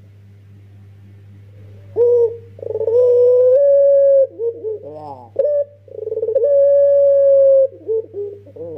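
Young ringneck dove (puter) cooing. About two seconds in, a series of coos begins, with two long, steady, drawn-out notes and shorter rising and falling notes between them. A steady low hum runs underneath.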